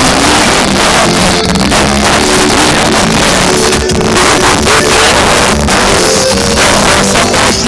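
Sertanejo (modão) song played very loud through a car sound system with a Selenium Tornado speaker driver.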